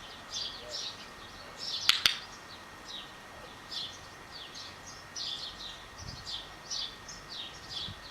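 Small birds chirping repeatedly in the background, with two sharp clicks close together about two seconds in.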